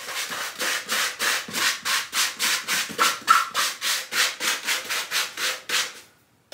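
Sandpaper rubbed by hand in quick back-and-forth strokes, about three a second, over a styrofoam helmet liner to scour off old glue residue. The strokes stop near the end.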